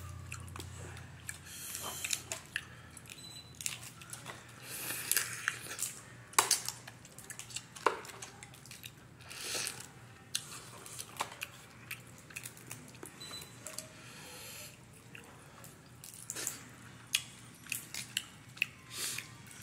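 Boiled crawfish being eaten at close range: shells cracking and snapping as they are peeled, with wet sucking, smacking and chewing. The sharp cracks come at irregular intervals throughout.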